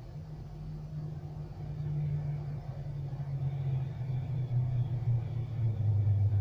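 A low motor drone whose pitch slowly falls while it grows louder.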